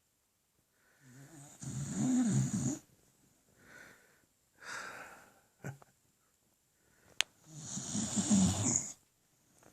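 Beagle snoring in its sleep: two loud snores about five and a half seconds apart, each lasting over a second, with quieter breaths between them. A brief sharp click comes just before the second snore.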